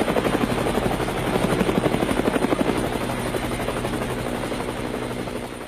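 Helicopter rotor chop: a loud, fast, even beating of the blades over engine noise, fading away near the end.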